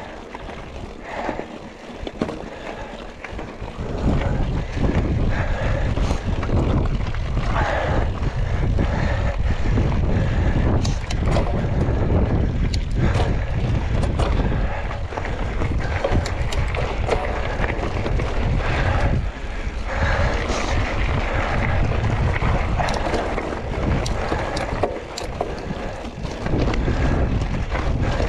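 Wind buffeting the microphone of a mountain bike rider's camera on a rough trail descent, with tyre noise and sharp rattles and clicks from the bike over rough ground. It gets much louder about four seconds in, as the bike picks up speed.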